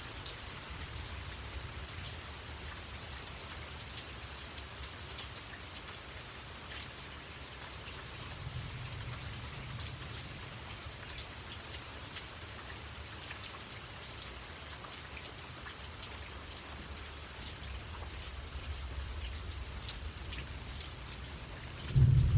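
Steady rain falling on leaves and on pooled water, a constant hiss dotted with small drop ticks. A low rumble swells and fades a couple of times, and a sudden loud low thump comes right at the end.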